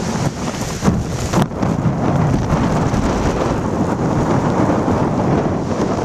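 Strong wind buffeting a plastic-wrapped camcorder microphone over the steady rush of heavy storm surf breaking on rocks, with a few sharp crackles in the first second and a half.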